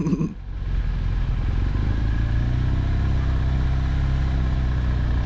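Motorcycle engine running at low speed, growing louder over the first second or two and then holding steady.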